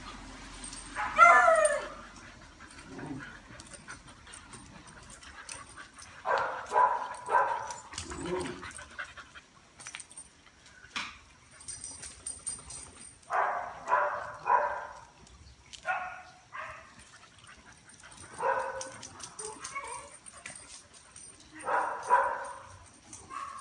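Dogs barking and yipping in short bursts of two or three while they play-fight. The loudest is a sharp yelp with falling pitch about a second in.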